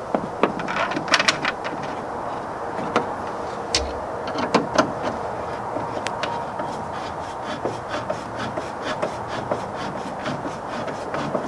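Screwdriver turning stainless countersunk screws into threaded rivet nuts through an aluminum rod-holder base: scattered metallic clicks and scraping, then a run of evenly spaced clicks, about two or three a second, in the second half.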